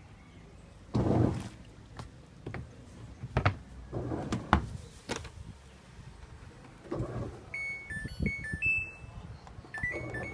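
Washing machines at work: scattered swishes, knocks and clicks of a wash load, then in the last few seconds a short electronic beep tune in stepping notes.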